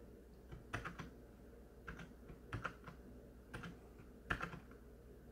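Individual keys pressed one at a time on a Rii RK100 backlit gaming keyboard: about six faint, scattered keystrokes, each a quick double click, cycling through backlight modes.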